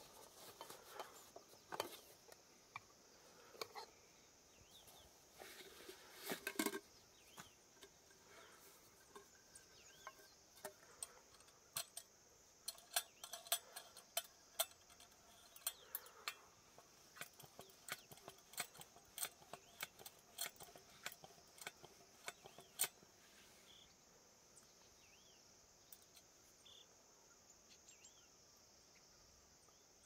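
Metal camping pots and a small gas canister stove being handled: a run of light clinks and clicks, thickest in the first three-quarters and stopping near the end, over a steady high insect chirr.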